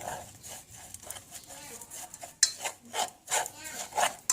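A utensil stirring and scraping inside a cooking pot, in short strokes about three a second that get louder from about halfway through.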